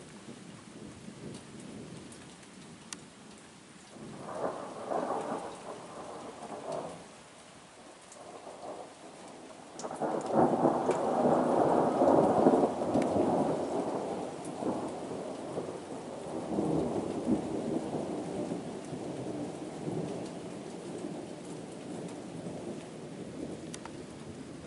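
Thunder rumbling overhead against a steady hiss of rain: a shorter roll a few seconds in, then a louder one that breaks suddenly near the middle and rolls on for several seconds before slowly fading.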